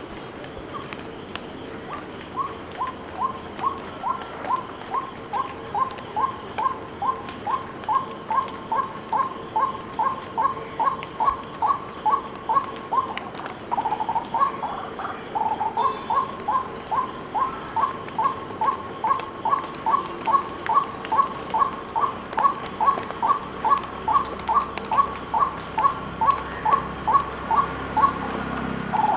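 White-breasted waterhen calling: the same short note repeated steadily about twice a second. About halfway through, a rougher, louder call breaks in briefly before the series resumes.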